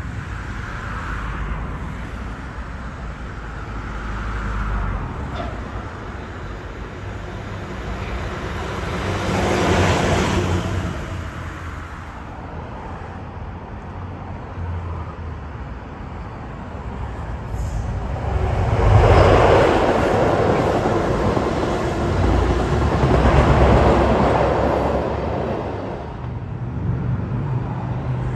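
Outdoor vehicle noise: a steady low rumble with swells of passing traffic, one about ten seconds in and a louder pair near twenty and twenty-three seconds in.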